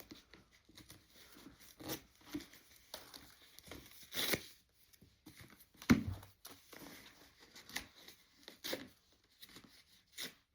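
Plastic packaging being torn and crinkled by hand, in short irregular rips and rustles with a few sharper tears around the middle.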